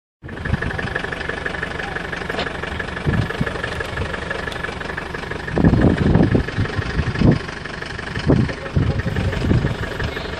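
Wind blowing across the microphone, with gusty low rumbles, strongest about halfway through, over a steady high-pitched hum.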